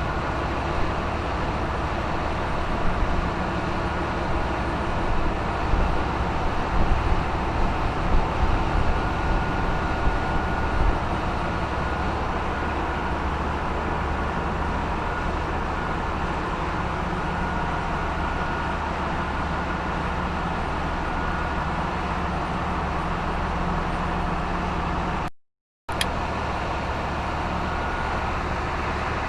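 Steady din of a bulk carrier's engine room machinery running, with a low hum and a faint high whine, and some irregular low thumps in the first ten seconds. The sound drops out completely for about half a second near the end.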